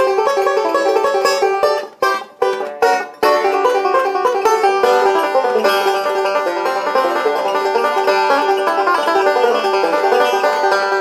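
Hawthorn RB-7 style five-string resonator banjo, with a Huber HR30 tone ring and a calfskin head, picked solo in a quick run of notes, with a few short breaks in the playing about two to three seconds in.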